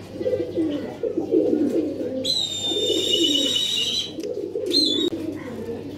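Domestic pigeons cooing continuously. A high, wavering whistle joins in for about two seconds in the middle.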